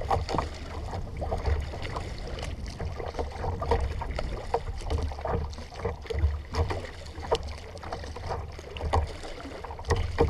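Kayak paddling: the paddle blades dip and splash in choppy water over and over, with water dripping and lapping at the hull, over a low rumble of wind on the microphone.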